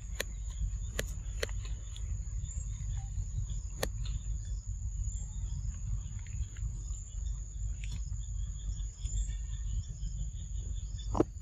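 Insects droning at one steady high pitch over a low rumble, with a few short sharp clicks, the loudest near the end.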